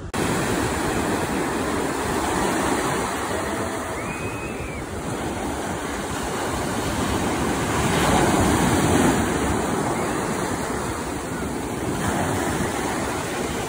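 Ocean surf breaking and washing up the shore in a steady rush, swelling loudest about eight seconds in.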